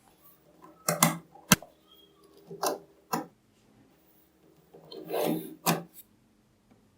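Small magnetic balls clicking and snapping together as they are handled, with one very sharp click about a second and a half in and a longer rattling scrape near the end.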